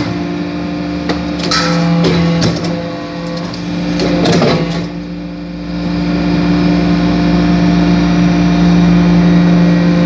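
Vertical hydraulic briquetting press running: a steady hum from its hydraulic power unit, with scattered clicks and rattles over the first few seconds as the punch works in a hopper of loose metal chips, then an even, slightly louder hum.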